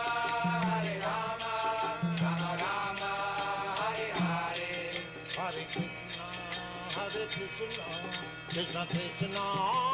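Devotional chant music: sung voices with jingling bells over a steady low drone.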